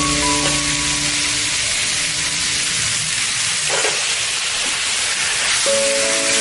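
Shrimp and vegetable stir-fry sizzling in a frying pan, a steady hiss, with a brief louder surge about four seconds in as sweet soy sauce is poured onto the hot food.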